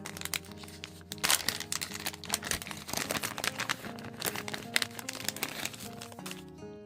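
Plastic packaging crinkling as it is handled and opened, a dense run of crackles that thins out near the end, over background music.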